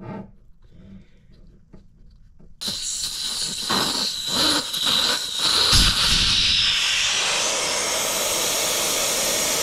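Air hissing out of a motorcycle tire through the valve stem as the valve core is unscrewed with a core-removal tool, deflating the tire. After a few faint clicks of the tool, the hiss starts suddenly about two and a half seconds in and then runs on loud and steady, with a few knocks from handling the tool in its first seconds.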